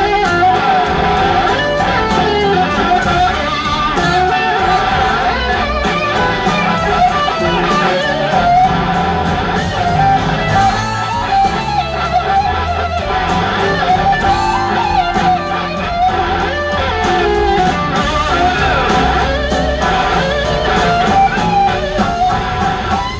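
Live blues-rock band playing: an electric guitar lead with notes that glide up and down, over electric bass and drums.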